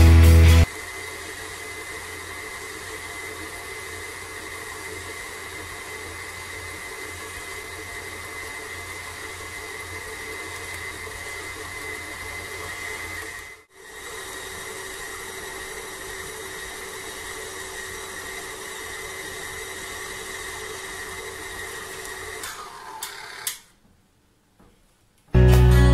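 KitchenAid stand mixer motor running steadily with a high whine while its dough hook kneads brioche dough in the stainless steel bowl. The sound drops out briefly about halfway, and near the end the whine falls in pitch as the mixer is switched off and winds down.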